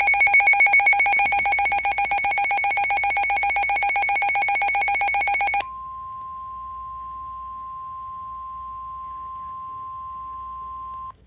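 Weather radio alert: a rapidly pulsing electronic alarm beep, then about five seconds in it switches abruptly to a steady single tone of about 1050 Hz, the warning alarm tone that comes before a severe thunderstorm warning.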